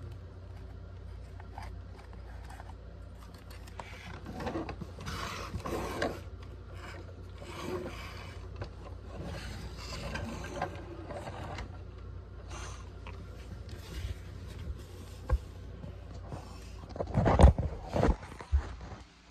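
Plastic toy garbage truck parts and toy cans being scraped and rubbed by hand on the floor, in irregular bursts. About three-quarters of the way through, a few loud knocks from the phone being grabbed and handled.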